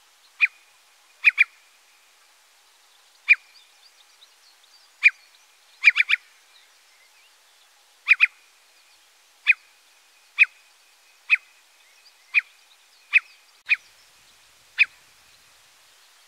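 Eurasian curlew giving short, sharp alarm calls roughly once a second, some in quick pairs or a triplet, as a parent bird on guard over its chicks.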